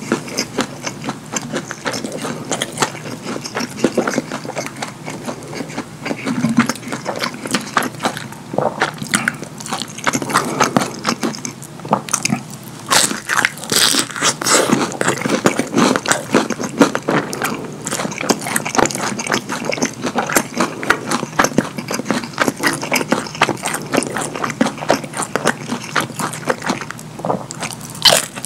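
Close-miked eating of fried chicken nuggets: constant wet chewing, biting and lip smacking in quick, irregular clicks. The sounds are loudest around the middle.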